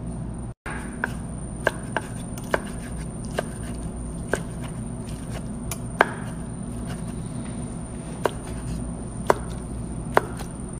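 Knife chopping oven-baked chicken into small pieces on a wooden cutting board: about a dozen sharp, irregular knocks of the blade against the board, over a steady low hum.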